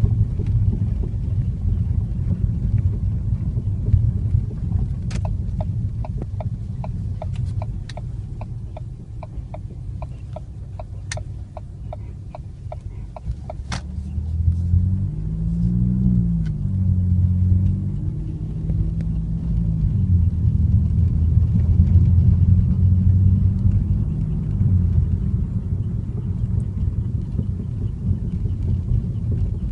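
Low rumble of a Ford Fiesta Mk7.5 EcoBoost car running. A run of light, evenly spaced ticks at about two a second sounds in the first half. From about halfway the engine pitch rises and falls and grows louder.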